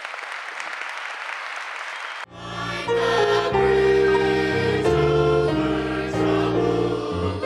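Audience applauding, breaking off abruptly about two seconds in, followed by a school choir of mixed young voices singing with a steady low accompaniment.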